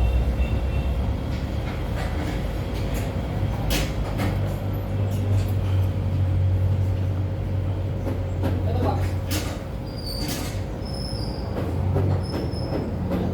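Hyundai Accent CRDi diesel engine being cranked by its starter, a steady low mechanical rumble with scattered clicks, without catching: the no-start fault being chased.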